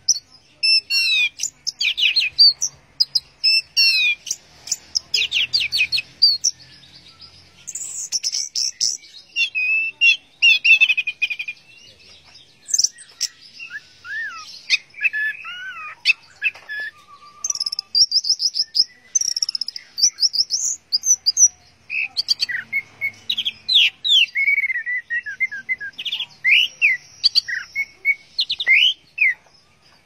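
Orange-headed thrush singing: a long run of fast, varied, high whistled phrases and trills, broken by short pauses.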